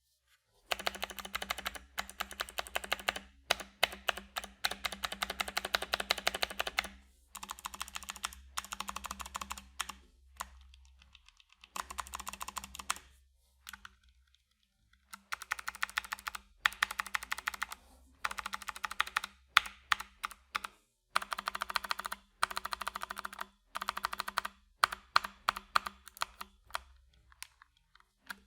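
Clicky Kailh BOX White mechanical keyboard switches on an FL eSports 68, with the keyboard on a desk mat, being pressed key by key to test the switches and stabilizers. The presses come in quick runs of clicks lasting a second or three, with short pauses between them.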